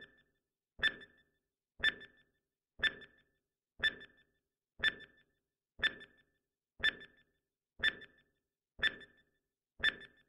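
Countdown timer sound effect: a short, sharp tick with a brief ringing tone, repeating once a second, about ten times.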